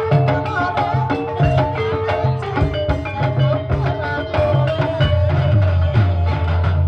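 Live ebeg accompaniment music over a sound system: drums beat under a melody on tuned percussion, with a heavy bass note held from about five seconds in.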